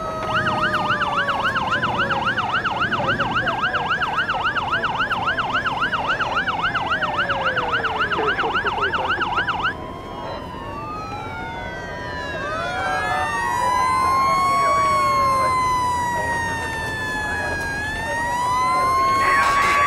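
Emergency vehicle sirens. A fast electronic yelp, cycling about three times a second over a slower wail that winds down, cuts off abruptly about ten seconds in. Several slow wailing sirens then rise and fall over one another.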